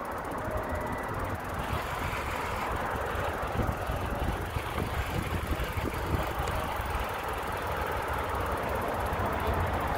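Steady rushing noise of a bicycle ride: low wind rumble on the microphone and tyres rolling on concrete, with traffic hum from the highway below.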